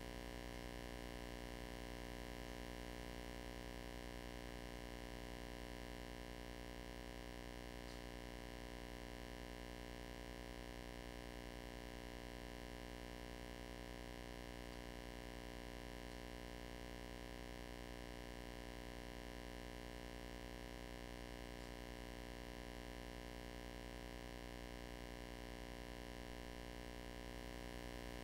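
Faint, steady electrical hum and hiss made of many fixed tones, unchanging throughout.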